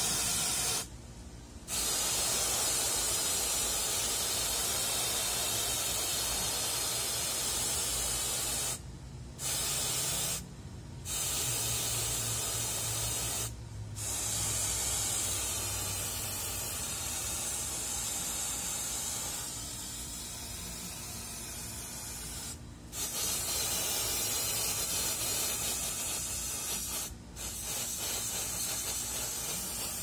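Can of compressed air (air duster) held upside down, spraying its liquid propellant in a continuous hiss onto a steel bicycle U-lock shackle to freeze it. The hiss breaks off briefly about six times and starts again at once.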